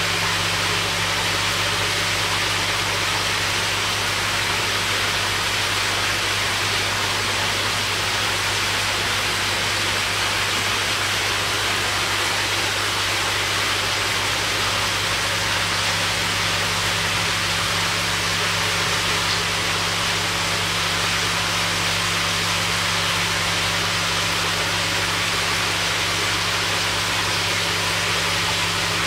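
Steady hiss of running water and aeration with a constant low electrical hum underneath, unchanging throughout.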